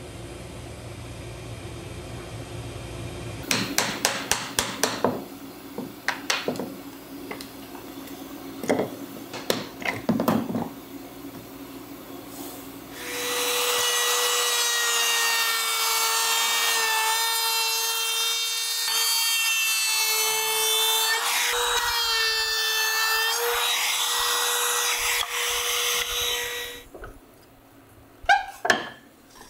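A CNC router hums steadily at first, followed by a series of sharp knocks and taps on wood. Then, for over ten seconds, a small handheld power tool runs with a steady whine whose pitch dips slightly as it works the cherry wood, before cutting off; a few more knocks come near the end.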